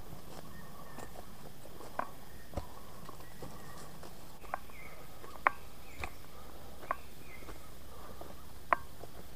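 A hiker walking on a forest trail: irregular sharp clicks and knocks of footfalls over a faint steady background.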